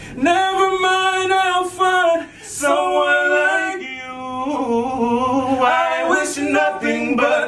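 Two voices singing a cappella in harmony: wordless held notes with vibrato and melismatic runs between lines of a ballad.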